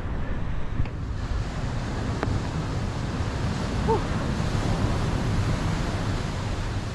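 Ocean surf washing steadily, with wind buffeting the microphone; the rushing grows louder about a second in.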